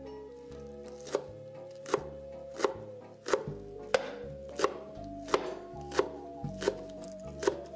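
Chef's knife chopping green onions on a wooden cutting board: about ten sharp chops, a little more than one a second, starting about a second in. Soft background music plays underneath.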